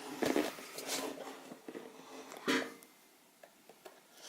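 A few brief rustles and scrapes from handling the tablet's cardboard box and its packaging while it is being opened, with the strongest about a second apart near the start and the middle, then near quiet.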